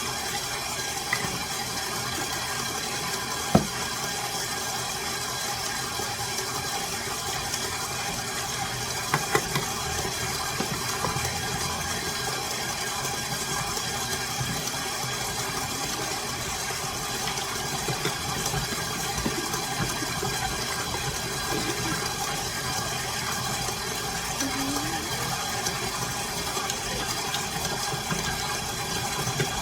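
Electric mixer motor running steadily while it mixes cookie dough, with a sharp knock about three and a half seconds in and a few more around nine seconds.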